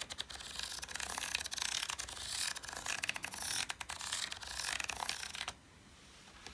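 Felt-tip marker scratching over paper as a plastic Spirograph gear is pushed round inside its ring, with many fine ticks of plastic gear teeth. It stops abruptly about five and a half seconds in.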